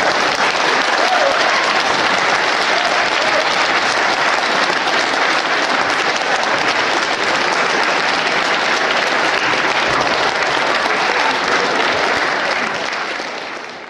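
Theatre audience applauding steadily, dying away near the end.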